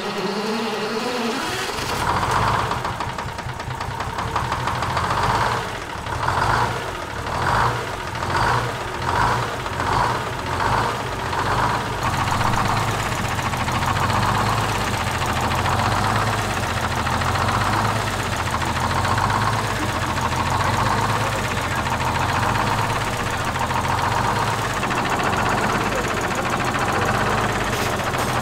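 A Detroit Diesel two-stroke diesel engine in a vintage GM bus running just after starting, its pitch rising as it picks up speed. Its speed swells and falls several times in the first ten seconds, then it settles into a steady idle.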